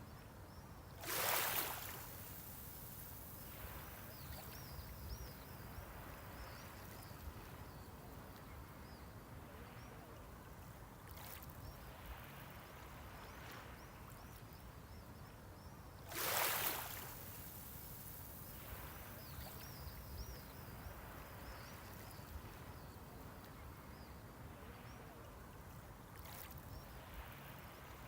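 Small waves breaking on the seashore. Two bigger waves break about fifteen seconds apart, each a short rush of surf that fades into a fizzing wash. Smaller breaks come in between.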